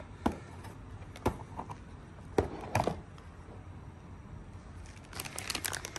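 Handling noise as a boxed audio sound card is picked up and held: four separate knocks and taps in the first three seconds, then a short stretch of crackling, rustling packaging near the end.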